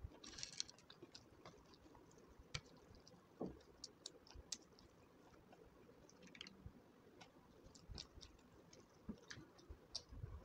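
Faint, scattered wet clicks and smacks of someone eating rice and dal by hand: mouth and chewing sounds, and fingers working the soft rice on a steel plate.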